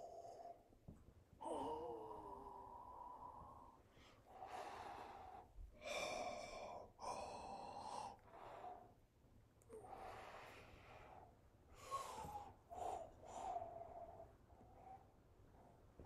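A person's breathing and mouth sounds: a string of separate breaths, gasps and puffs of air, one with a short wavering hum about two seconds in, with no words.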